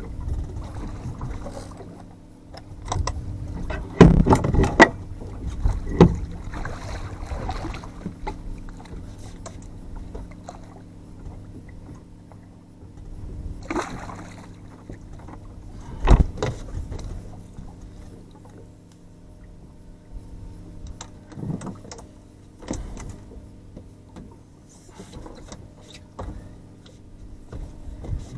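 Outboard motor idling with a steady low hum, under splashing water and several sharp knocks against the boat, the loudest a few seconds in.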